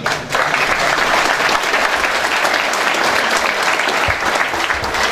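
A large seated audience applauding in a hall: dense, sustained clapping from many hands, starting a moment in and holding steady.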